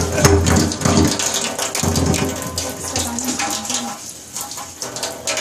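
Tap water running and splashing into a stainless steel sink, with scattered clinks of a steel utensil being rinsed. The water noise eases off a little near the end.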